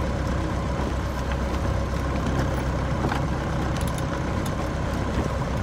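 An engine running steadily, a low even drone with faint steady hum tones and no change in speed.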